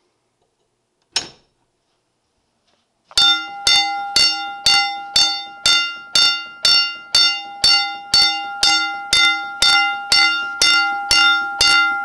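Standard Electric single-stroke fire alarm bell, triggered by a pulled manual pull station, striking over and over at about two strokes a second, each stroke ringing on into the next. It starts about three seconds in, after a single sharp click.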